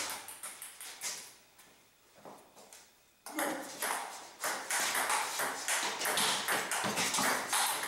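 Table tennis ball clicking sharply off rubber paddles and the table top in a fast rally. The clicks thin out and stop about a second and a half in, then a new run of quick clicks starts just after three seconds.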